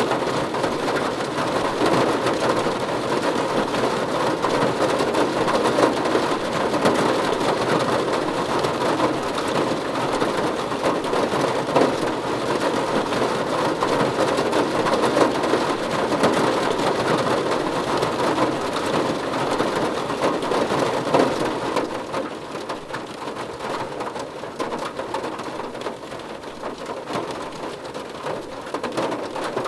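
Steady heavy rain, a dense patter of drops hitting a surface. It eases off a little about two-thirds of the way through.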